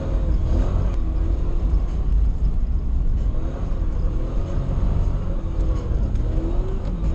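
Toyota 1UZ V8 in a Nissan 240SX revving up and down during a drift, heard from inside the cabin: engine pitch rising and falling repeatedly over a steady low rumble.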